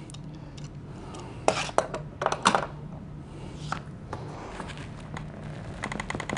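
Steel pliers clinking and scraping on the metal shaft of an office chair's gas-lift cylinder as it is gripped and twisted to work it loose from the base: a few sharp metallic clicks, then a quick run of ticks near the end.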